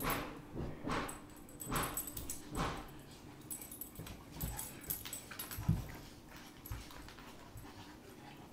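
A Newfoundland and a young lab–husky puppy play-wrestling: short dog play noises about once a second for the first three seconds, then a few low thumps from bodies and paws.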